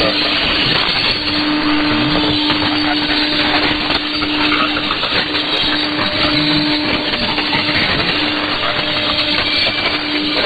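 Shortwave AM reception of a weak signal on 6100 kHz: dense static with a steady low whistle that drops out several times, and no clear voice coming through.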